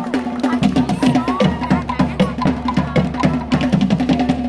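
Fast Tahitian drumming: rapid, even wooden slit-drum strikes, with a deeper drum joining underneath about half a second in.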